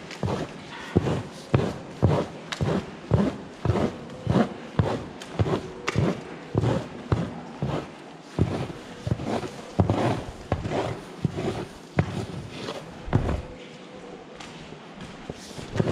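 Long-handled stall scraper working sawdust bedding in cow cubicles, quick strokes about two a second, each a scrape and knock on the concrete curb and slatted floor. The strokes pause briefly near the end.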